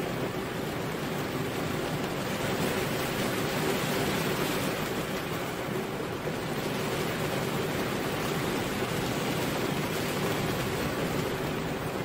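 Steady rain falling: an even, unbroken hiss, with no separate drops, thunder or gusts standing out.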